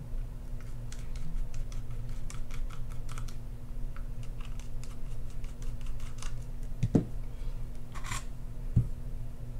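Light, irregular clicking and ticking of a small precision screwdriver turning out the side-plate screws of an Abu Garcia Ambassadeur 6500CL reel, with a couple of duller knocks about seven seconds in and near the end.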